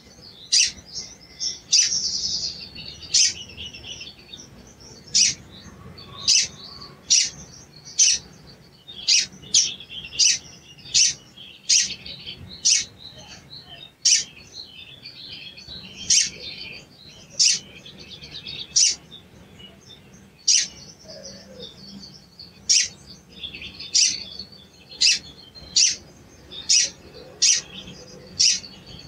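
Male olive-backed sunbird (sogon) calling: sharp, high "cuit" chirps roughly once a second, with quick scratchy twittering between them. This is the agitated calling used as a lure to set other sunbirds singing.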